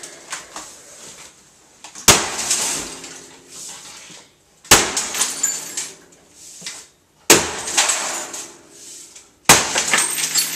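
Sledgehammer smashing a television's glass: four heavy blows about two and a half seconds apart, each followed by shattering and clattering glass.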